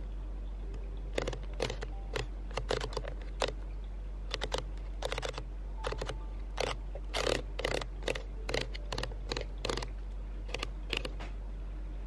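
Small cardboard box being handled in the hands: a run of short crackling scrapes and taps, some in quick clusters, starting about a second in and stopping near the end, over a steady low hum.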